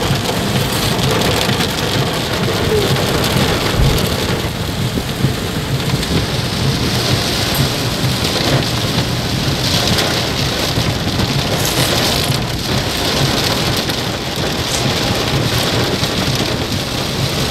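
Heavy rain falling on a car as it drives, a loud steady hiss.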